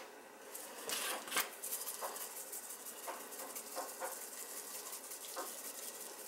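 Dried Italian seasoning shaken from a shaker jar over a pan of raw vegetables: faint, short rattles and pattering of the herbs at irregular intervals, about one a second.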